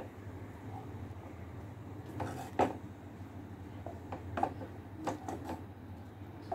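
A spoon stirring thick phirni in a steel saucepan, scraping and knocking against the pan in scattered strokes, the loudest about two and a half seconds in, over a steady low hum.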